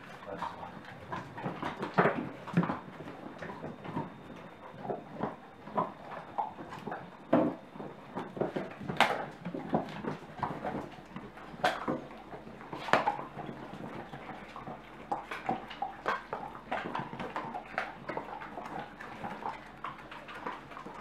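Basset Artésien Normand dogs gnawing and crunching on raw bones, with irregular cracks and clicks of teeth on bone.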